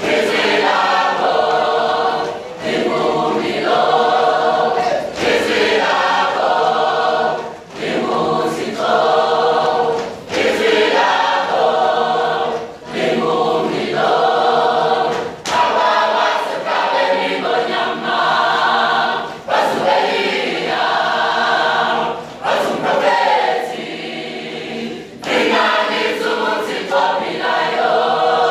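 Mixed choir singing a Zulu gospel hymn without accompaniment, full chords in short phrases with brief breaks between them.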